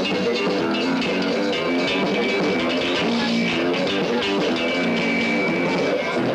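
Rock music: guitar with drums, playing steadily.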